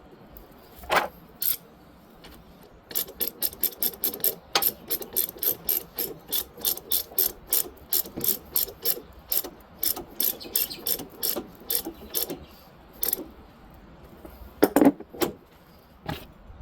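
Hand socket ratchet clicking in a steady run of about three clicks a second for roughly ten seconds. A few louder knocks of metal parts come before and after the run.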